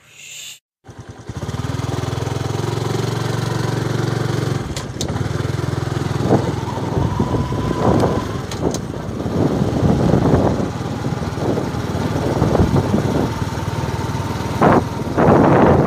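After a brief hiss and a short break, a small motorbike engine runs steadily as it travels along, with wind buffeting the microphone in irregular gusts that are strongest near the end.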